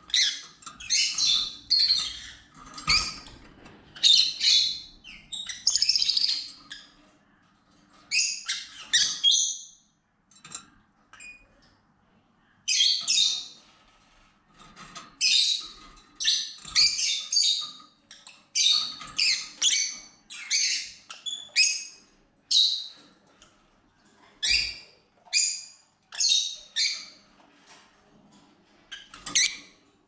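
Peach-faced lovebirds giving loud, shrill chirping calls in quick clusters, with short pauses between the runs.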